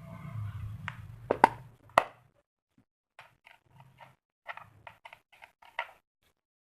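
A plastic feature phone and its packaging handled during unboxing: rustling and two sharp clicks in the first two seconds, then a run of light clicks and taps.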